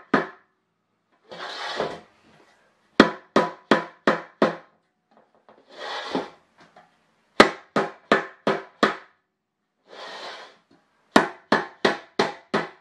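A rubber mallet knocking on the back of a three-piece aluminium wheel in three quick volleys of about six blows each, with short noisy sounds between them. The blows are meant to break the silicone seal and loosen the centre from the barrel.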